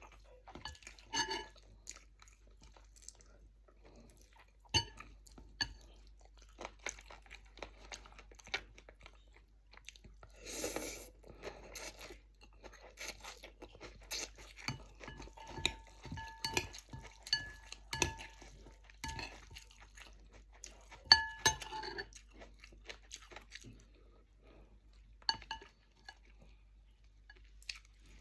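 Close-up eating sounds of a person chewing chicken feet and dry rice-vermicelli noodles: irregular crunching and chewing, with cutlery clinking and ringing against a bowl now and then and a longer noisy rustle about ten seconds in.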